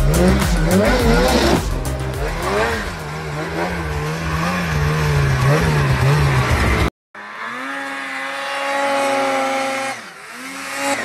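Snowmobile engine revving, its pitch swinging up and down over and over as the throttle is worked, with music ending in the first second. After an abrupt cut, another snowmobile engine runs at a steadier pitch, rising and then dropping back near the end.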